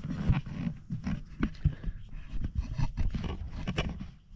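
Camera handling noise: irregular knocks, thumps and rustling as the camera is carried low over the forest floor. It drops away sharply about four seconds in.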